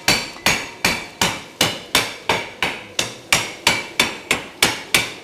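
Cleaver chopping on a thick round wooden chopping block in a steady rhythm of about three blows a second, each with a short metallic ring.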